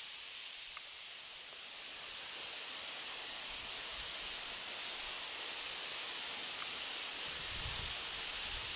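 Steady outdoor hiss of wind through grass and vegetation. Near the end, gusts buffeting the microphone add a low rumble.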